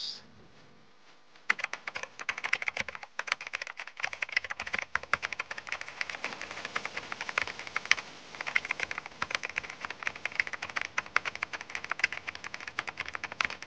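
Rapid, irregular computer-keyboard typing clicks, a typing sound effect laid under text being typed out on screen, starting about a second and a half in.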